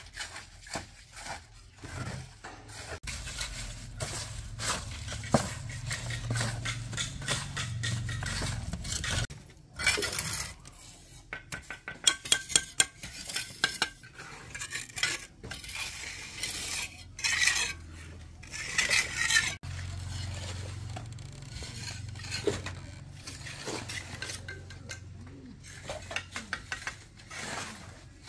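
Kitchenware being handled: metal utensils clinking and knocking against pots and bowls, with a run of sharp, loud clinks in the middle, over a low steady hum that comes and goes.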